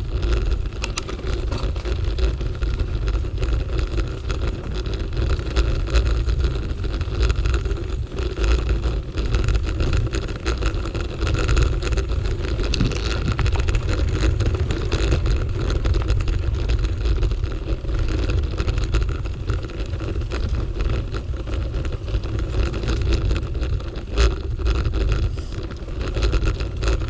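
Bicycle riding over a bumpy dirt path: continuous low tyre rumble and rattling from the bike, with wind on the microphone and a steady hum underneath.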